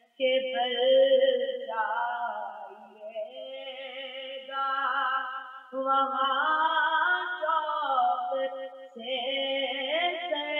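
Urdu naat sung by a male voice in long ornamented phrases over a steady held drone, the phrases separated by short breaths.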